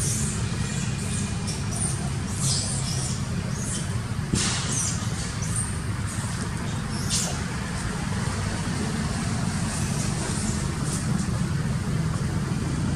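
Steady low engine rumble, like a vehicle running close by, with short high squeaks and chirps scattered over the first seven seconds or so.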